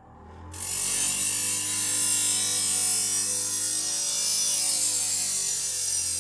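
Chainsaw cutting into wood, coming in loud about half a second in and running steadily at full throttle.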